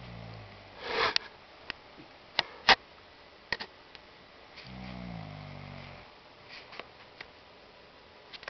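A sleeping person snoring: a low, rattling snore at the start and another about five seconds in, with a breathy exhale about a second in. Several sharp clicks sound between the snores; the loudest comes just before the three-second mark.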